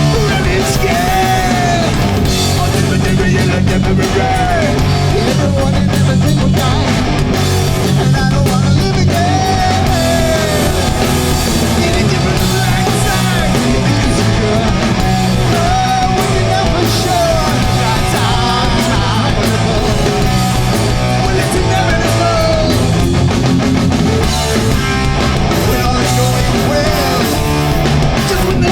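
Hardcore punk band playing live at full volume: distorted electric guitars, bass and drums, with a sung vocal line over them.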